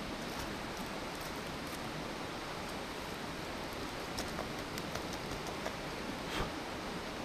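Wood campfire crackling: a steady hiss with scattered sharp pops and snaps, coming more often in the second half.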